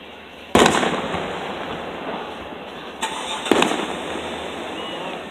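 Aerial firework shells bursting: a loud bang about half a second in that trails off into a rolling echo, then two more bangs close together about three seconds later.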